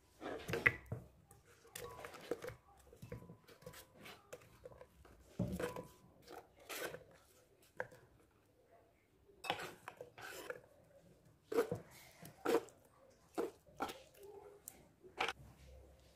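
Kitchen handling sounds: a series of irregular clicks, knocks and light clinks of utensils and dishes during food preparation.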